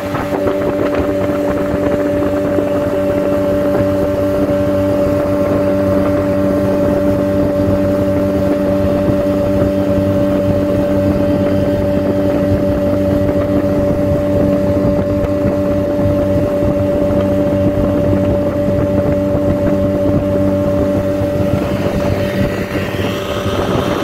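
Motorboat engine running at a steady drone, heard from on board, with its note shifting near the end.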